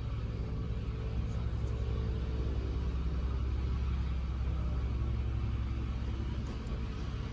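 A steady low rumble with a faint hum in it, falling away right at the end.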